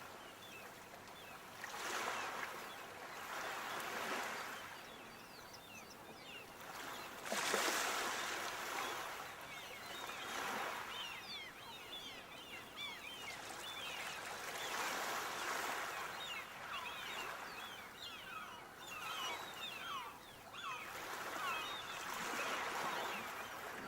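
Sea waves washing in and drawing back in surges every few seconds, with the biggest about a third of the way in. Many short high chirps are scattered over the second half.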